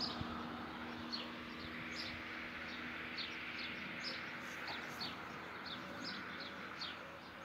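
Small birds chirping, short high chirps a few times a second, over a steady background haze of outdoor noise.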